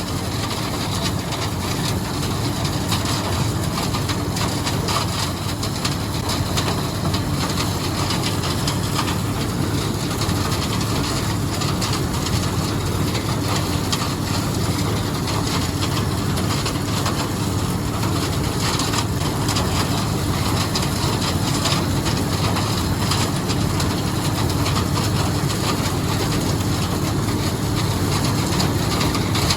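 White 7300 combine running steadily while harvesting corn: the engine's drone under the rattle and clatter of the corn head and threshing machinery.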